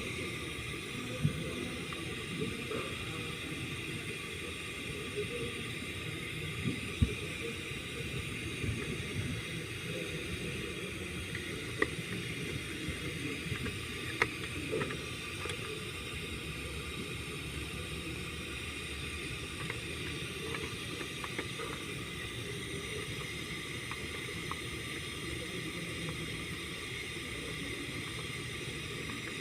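Engine running steadily with a hissing note and a few sharp clicks in the first half; the engine has a misfire on cylinder number 5, which the owner puts down to a collapsed valve lifter and a worn camshaft.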